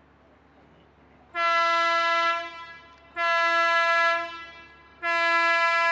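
Tour motor ship's horn giving three short, loud blasts of one steady pitch, evenly spaced about two seconds apart; three short blasts is the signal for going astern.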